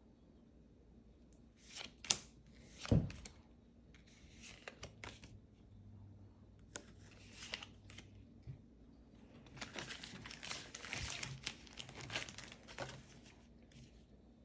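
Foil Pokémon booster pack wrapper crinkling and tearing as it is handled and opened, most of it in the second half. Two sharp clicks, about two and three seconds in, are the loudest sounds.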